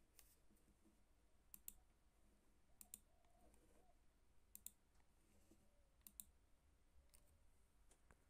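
Faint clicking of a computer pointing-device button: five quick double clicks, spaced roughly a second and a half apart, over near silence.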